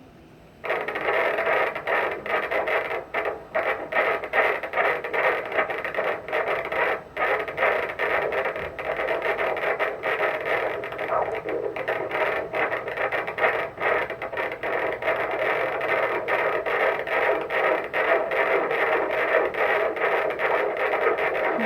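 Fetal heartbeat played through an ultrasound machine's Doppler speaker: a loud, rhythmic pulsing whoosh that starts suddenly under a second in. It is a good, strong fetal heart rate.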